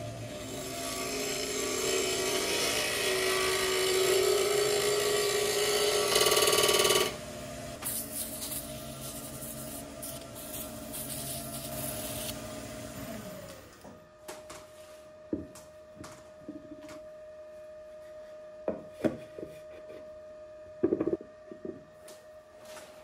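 Wood lathe spinning a small wood-and-resin piece while it is sanded, loud for the first seven seconds and then quieter. About thirteen seconds in the lathe motor winds down to a stop, followed by scattered knocks and clicks as a new blank is handled and fitted on the lathe.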